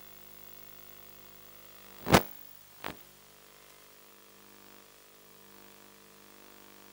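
Two sudden sharp cracks, the first loud and the second, under a second later, quieter and shorter, over a faint steady hum.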